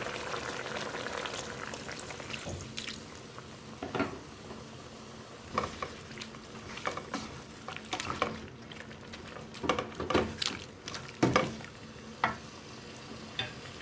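Seasoned meat and chicken sizzling and bubbling in oil with a little added water in a cooking pot, with a spoon knocking and scraping against the pot now and then as it is stirred.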